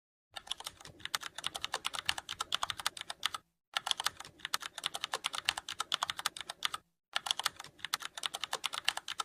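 Fast typing on a computer keyboard: quick runs of key clicks in three stretches, each broken off by a sudden cut.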